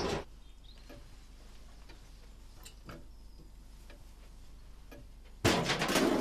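A quiet room with a few faint ticks, then about five and a half seconds in a sudden loud clattering crash.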